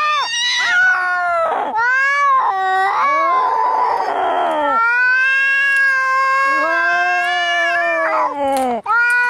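Domestic cats fighting: long, drawn-out yowls that rise and fall in pitch, with a harsh, noisy stretch near the middle.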